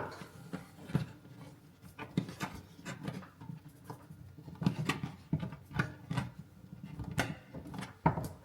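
Irregular light clicks and knocks, about one or two a second, of hand tools and screws as the mounting screws holding an over-the-range microwave to the cabinet are undone.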